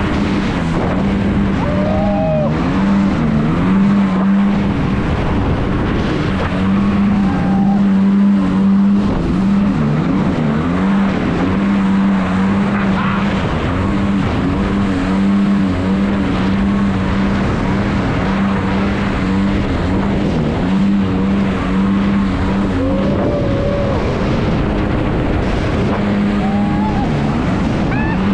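Motorboat engine running steadily under a loud wash of noise, its note sagging briefly in pitch a few times as the throttle changes.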